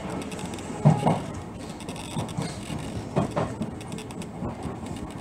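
Train wheels clacking over rail joints as the electric train runs at about 40 km/h: two double knocks in a regular rhythm over a steady running rumble.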